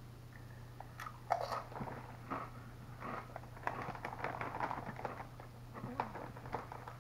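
A Doritos tortilla chip bitten into with a sharp crunch about a second in, then chewed with a run of irregular crunches.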